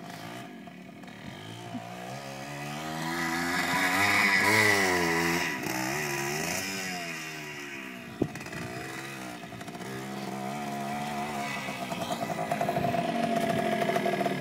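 Dirt bike engine revving and easing off under the rider: the pitch climbs to its loudest about four seconds in, drops back around six seconds, then climbs again as the bike comes close near the end. A single sharp click sounds about eight seconds in.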